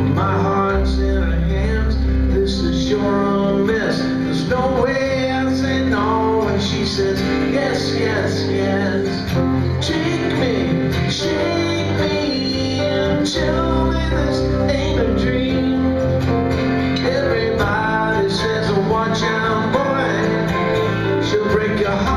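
Live instrumental break of a pop ballad: an acoustic guitar strummed together with a Kurzweil electronic keyboard, steady and full, with a melody moving over sustained bass notes.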